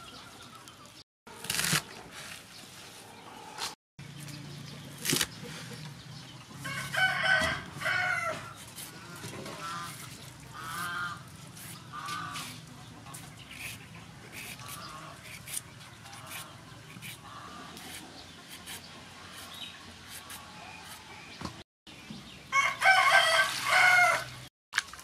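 A rooster crowing twice, about seven seconds in and again near the end, each crow a loud, two-part call about two seconds long, with softer calls between. Scattered clicks and knocks from vegetables being handled and peeled.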